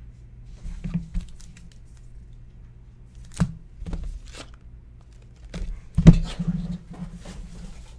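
Trading cards and foil pack wrappers being handled on a table: scattered rustling and crinkling with light clicks, and one louder thump about six seconds in.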